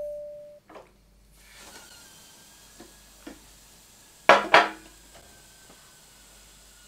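A bell-like ding fades out, then light clicks and two sharp knocks about four and a half seconds in as a drinking glass is handled and set down on a glass-topped table.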